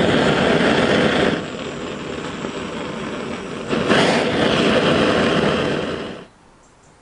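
Gas blowtorch burner running with a steady roar as it heats a copper boiler for silver soldering. It is quieter for a couple of seconds in the middle, loud again about four seconds in, and cuts off about six seconds in.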